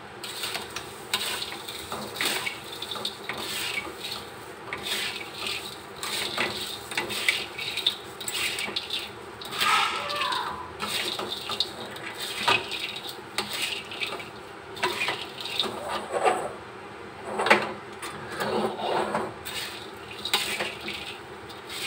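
A metal spatula scrapes and tosses crisp fried shoestring potatoes around a black wok, giving a string of uneven rustling, scraping strokes as the dry potato sticks are mixed into a sugary chili coating.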